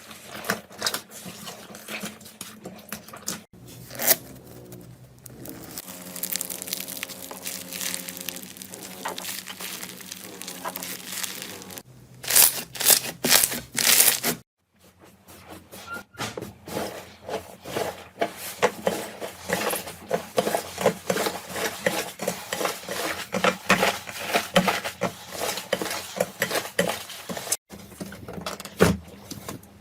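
Slime being squeezed, poked and stretched by hand, making a dense stream of wet clicks, pops and crackles. The sound changes abruptly several times as one clip gives way to the next.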